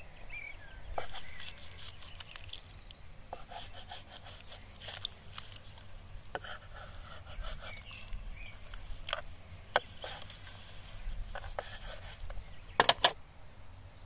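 Knife slicing raw beef heart on a wooden cutting board: scattered scrapes and taps of the blade against the board, with a quick cluster of sharp knocks near the end.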